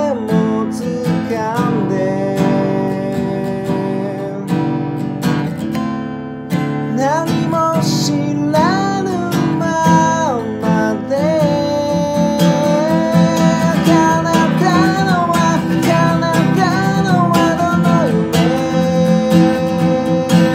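Steel-string acoustic guitar strummed in steady chords, with a man singing over it from about seven seconds in.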